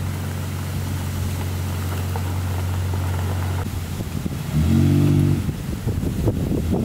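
An engine running with a steady low hum, then briefly revving up about four and a half seconds in and holding the higher pitch for under a second, the loudest moment.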